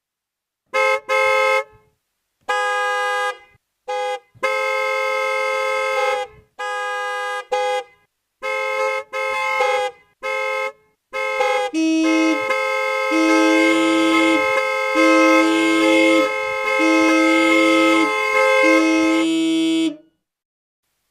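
Car horns honking: a run of separate short and longer honks, some as quick double toots, then a long held honk with a lower horn note sounding five times in an even beat beneath it, stopping suddenly near the end.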